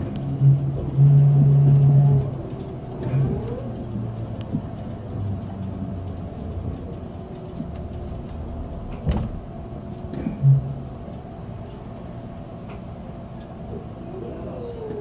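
Electric limited express train heard from inside, with a steady running hum. Motor whines rise about three seconds in and fall near the end, and there are a few short, loud low hums and one sharp knock about nine seconds in.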